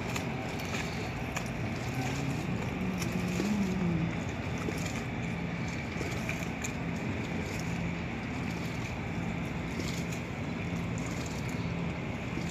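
Steady drone of a boat engine running at an even speed, mixed with wind and water noise.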